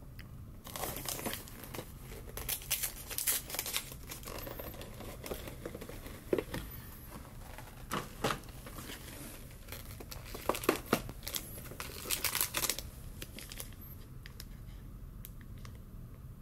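Crinkling and rustling of cookie packaging as a paper box is opened and the individually plastic-wrapped cookies inside are handled. It comes in several bursts and dies down over the last few seconds.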